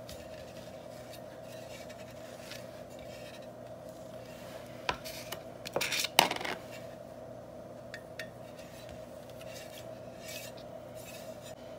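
Metal offset spatula scraping and spreading buttercream over a cake, in soft repeated strokes over a steady hum. About five to six and a half seconds in come a few sharp, louder metal clinks and scrapes, as the spatula is scraped clean against a bowl.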